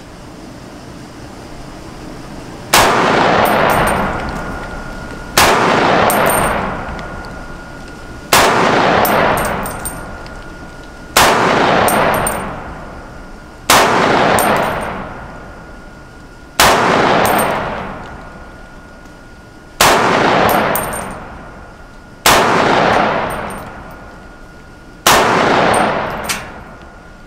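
Springfield Armory Saint Victor .308 semi-automatic rifle fired nine times at an unhurried pace, a shot every two and a half to three seconds, each report followed by a long echo that dies away.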